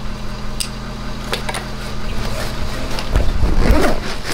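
Hunting gear being handled: short clicks and rustling of a backpack, its straps and zipper, over a steady low hum. Heavier low thuds and rustling come in about three seconds in.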